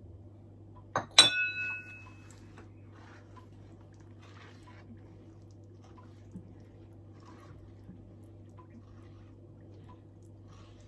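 A sharp double clink of a small dish or utensil against the pan or a dish about a second in, the second ringing briefly. Then a steady low hum with faint soft strokes of a silicone spatula stirring the milky butter mixture in a nonstick pan.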